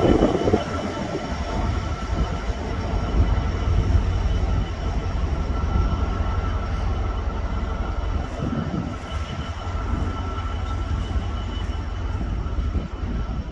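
GB Railfreight Class 66 diesel locomotive's two-stroke EMD engine running as the ballast train pulls away, a steady low rumble with a steady high whine over it, and the wagons rolling on the rails.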